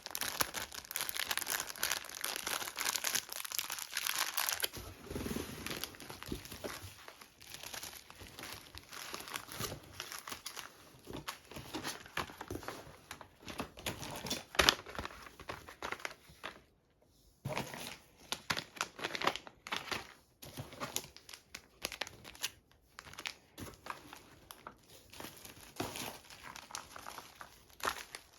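Packaging being unwrapped by hand, crinkling and tearing: dense for the first few seconds, then on and off with scattered crackles and clicks.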